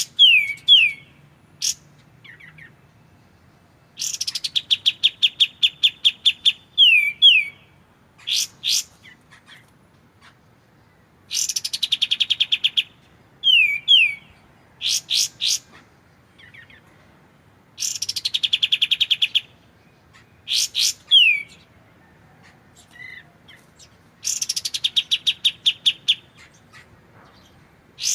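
Kapas tembak song played as a masteran recording: a fast trill of evenly repeated notes lasting about two seconds, followed by a few downward-slurred whistles and sharp upward notes. The phrase repeats four times, with short quiet pauses between.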